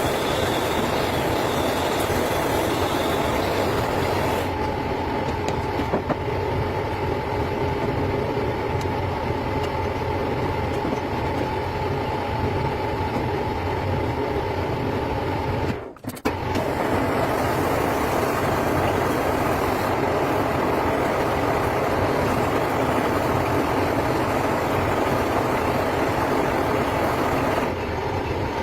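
Steady mechanical running noise, like an engine, with a brief break about sixteen seconds in.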